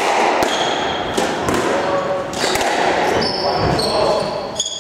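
A squash rally: a string of sharp racket-and-ball hits, the ball cracking off the court walls, with athletic shoes squeaking on the wooden court floor in short high squeals.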